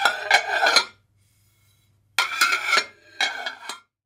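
Dishes and cutlery clattering and clinking in bursts: one ending about a second in, then two short ones in the second half.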